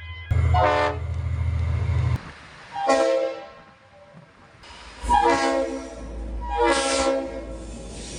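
Train horns sounding four short blasts, each a chord of several tones, over the low rumble and hiss of a train running.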